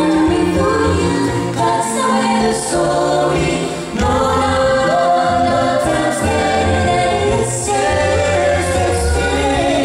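A five-voice a cappella group, two women and three men, singing in close harmony through microphones, with a low bass voice carrying the line underneath and no instruments.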